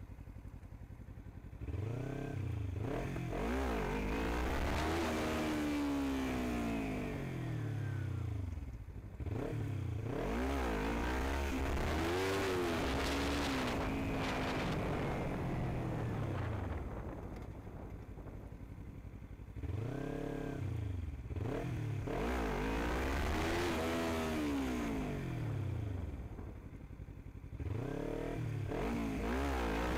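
Kawasaki Ninja 300 parallel-twin engine under way, its pitch repeatedly rising and falling as the bike accelerates and eases off. The engine drops quieter briefly several times: near the start, about a third of the way in, a little past halfway, and near the end.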